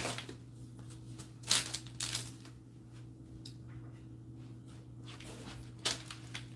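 A few short, faint rustles and clicks from things being handled out of view, over a steady low hum.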